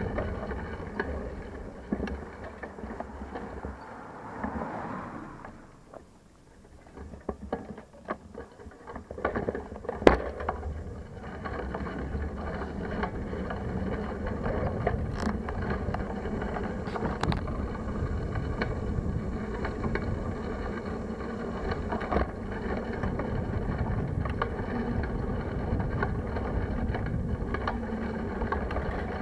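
Bicycle ride heard from a handlebar-mounted camera: steady wind buffeting on the microphone over road rumble from the tyres, with small rattling ticks from the mount. It goes quieter for a few seconds around the sixth second, and a single sharp knock about ten seconds in is the loudest sound.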